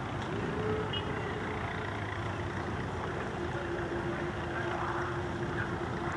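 Supermarine Spitfire's V12 piston engine running at low power as the fighter taxis on the ground, a steady drone.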